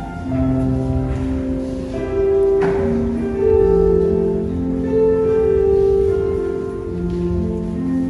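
Slow instrumental music of held chords that change every second or so. A brief knock sounds about two and a half seconds in.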